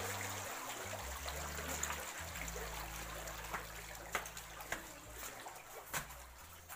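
Water trickling steadily in concrete catfish ponds, with scattered small clicks and splashes, slowly getting quieter.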